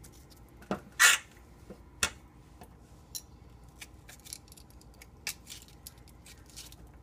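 Small paring knife scraping the seeds out of a halved zucchini: a string of light scrapes and clicks, with a louder scrape about a second in.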